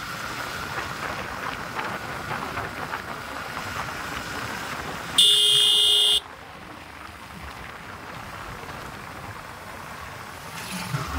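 A motorcycle riding along, with steady engine and wind noise. About five seconds in, a horn sounds once, a loud steady beep lasting about a second, and the ride noise is quieter after it.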